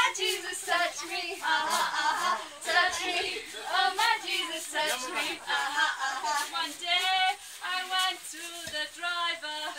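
A group of women's voices singing a gospel song together without accompaniment, with a few held notes toward the end.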